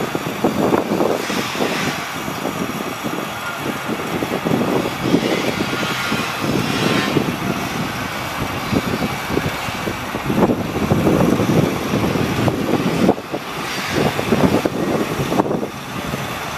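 An engine running steadily, with a rough, uneven rumble.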